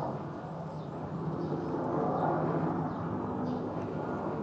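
Outdoor background ambience: a steady low rumble, with faint high bird chirps now and then.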